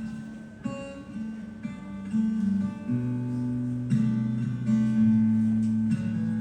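Acoustic guitar strumming chords, each chord struck and left to ring, about once or twice a second, in a live song accompaniment.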